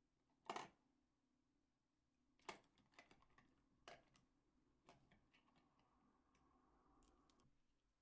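Faint clicking and rattling of pens and pencils against each other and their holder as a hand rummages through them and draws one out. One sharp click about half a second in, a cluster of clicks from about two and a half to four seconds, then lighter ticks over a soft rustle.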